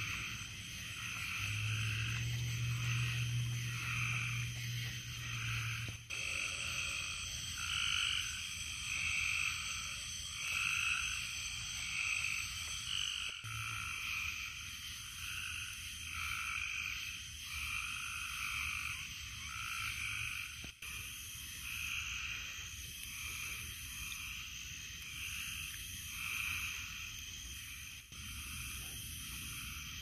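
Summer-night frog chorus: many frogs trilling in overlapping calls, roughly one a second, over a steady high-pitched hiss. A low hum sounds under it for the first few seconds.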